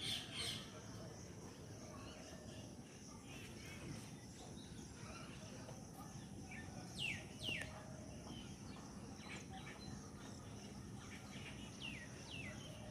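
Outdoor ambience: a steady faint hiss with birds chirping. Pairs of quick falling calls come about seven seconds in and again near the end.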